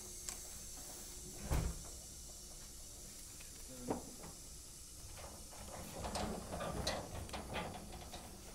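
Handling noise from sacks of ginger being loaded onto a truck: two dull thumps, then a run of knocks and rustling near the end, over a steady high hiss.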